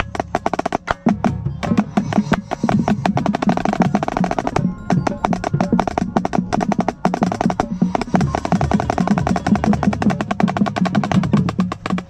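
Marching snare drum with an Evans head played up close in fast, dense runs of crisp strokes, with the lower drums of the drumline sounding underneath. The snare stops briefly about five seconds in and again near eight seconds before resuming.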